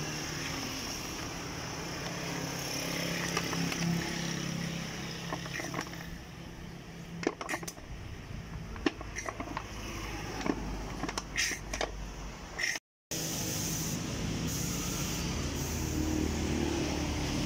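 Steady hum of road traffic, with scattered sharp clicks and knocks as a tire lever and hands work the bead of a motorcycle tubeless tire on its rim.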